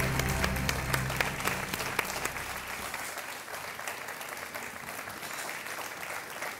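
Studio audience applauding, the clapping slowly thinning and fading toward the end, with the show's music dying away during the first few seconds.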